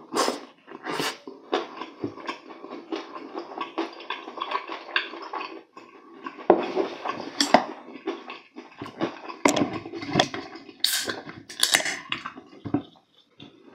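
Close-up eating sounds: spicy stir-fried ramen noodles slurped in, then wet chewing and lip smacks in an irregular run. Near the end come sharper bursts of noise as a soda can is handled.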